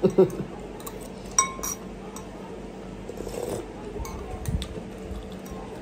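Metal spoon and fork clinking against a glass bowl of noodle soup, with two sharp, ringing clinks about a second and a half in and softer knocks and scrapes after.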